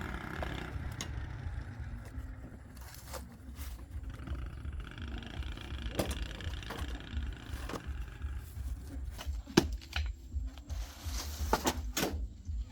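Scattered sharp clicks and knocks of tools being handled during car repair work, a sharp knock about two thirds of the way in the loudest, over a steady low rumble.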